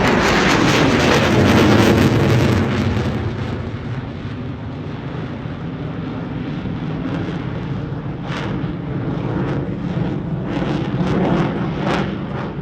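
An aircraft flying past, loud with a falling pitch at first, then dropping away into a quieter, steady engine noise.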